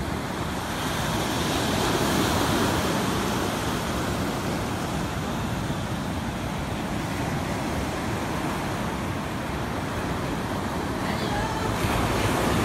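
Sea surf breaking and washing up a sandy beach: a steady, continuous rush of waves.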